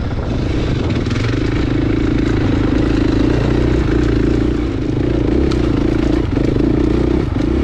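Dirt bike engine running steadily at low throttle on a trail ride. The revs ease off briefly a couple of times near the end.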